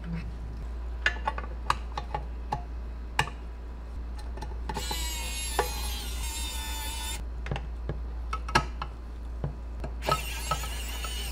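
Small electric screwdriver whirring twice, about five seconds in and again near the end, each run lasting a couple of seconds, as it drives screws into the plastic cab of a model truck. Light clicks and taps of plastic parts being handled come in between.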